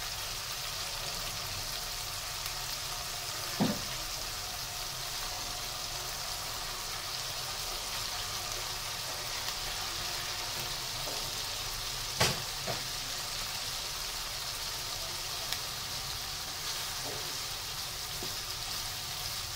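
Spice paste and hilsa steaks frying in oil in a wok, a steady sizzle. Two sharp knocks about four seconds in and about twelve seconds in, with a few fainter clicks.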